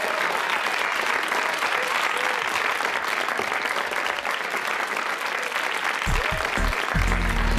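Audience applauding after a song. Background music with a low, pulsing beat comes in near the end.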